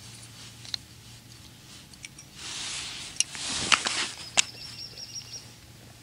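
Handling noise from a small ice-fishing rod and reel being jigged over the hole: rustling swells around the middle and a few sharp clicks, the loudest in the second half.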